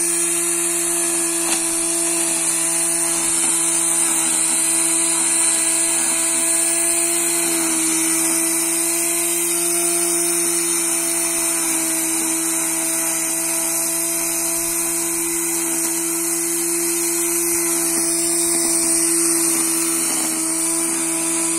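Angle-grinder motor of a homemade electric grass cutter running steadily as it cuts dry grass, a constant high whine over a lower hum. Its pitch sags slightly now and then.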